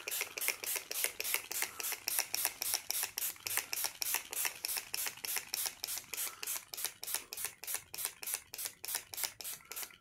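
Finger-pump spray bottle of facial mist pumped rapidly over and over, about four short hissing sprays a second, misting onto the face.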